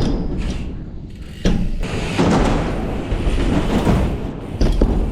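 Dirt jump bike riding ramps: tyres rolling, with a sharp thud of a landing about a second and a half in and another near the end.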